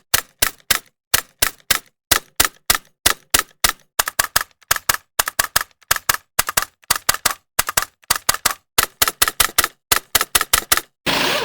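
Rapid, irregular series of sharp mechanical clicks, about four or five a second, in uneven clusters with short pauses between. The clicks stop shortly before the end, where a steady machine noise begins.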